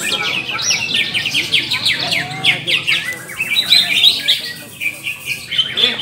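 Several caged cucak ijo (green leafbirds) singing at once: fast, overlapping chirps and trills, with a brief lull near the end.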